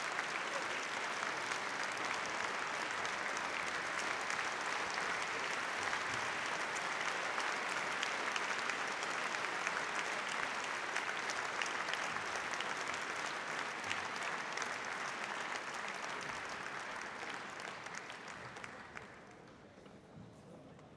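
Large audience applauding, a dense steady clatter of clapping that fades and dies away near the end.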